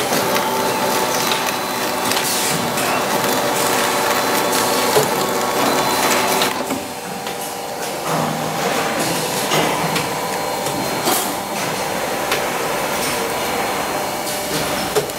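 Vertical injection molding machine running: a steady mechanical hum with scattered clicks and knocks, easing briefly about seven seconds in.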